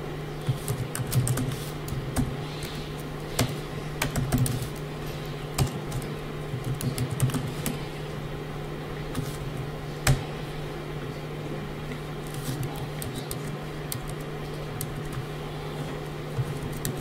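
Typing on a computer keyboard: irregular runs of keystroke clicks, busiest in the first half, with a steady low hum underneath.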